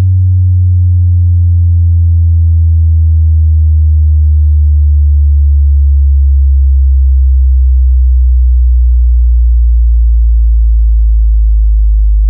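Loud, deep electronic bass test tone, a low sine tone gliding slowly and steadily downward in pitch with fainter higher overtones falling along with it. It is the kind of sweep used to check a subwoofer's response.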